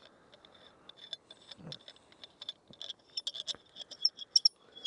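Light clicking and ticking of the Sunkoon survival shovel kit's knife blade being screwed into its threaded extension handle. The clicks are irregular and come thicker in the second half.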